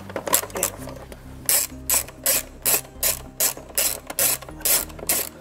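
Hand socket ratchet clicking in short, evenly spaced strokes, about two and a half a second, as a bolt is wound out.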